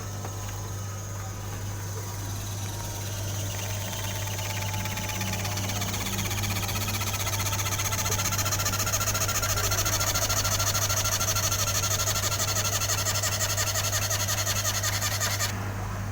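An electric motor running with a fast, even rhythm, growing louder over several seconds and cutting off suddenly near the end, over a steady low hum.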